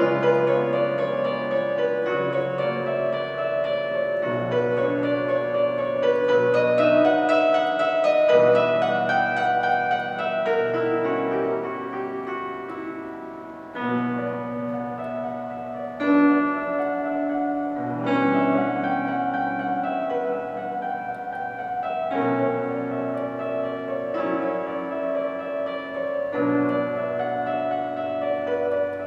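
Klavins Una Corda piano, an open-frame upright with a single string per note, being played: sustained chords and a melody over held bass notes. The playing eases off and gets quieter a little past the middle, then comes back with a strong chord.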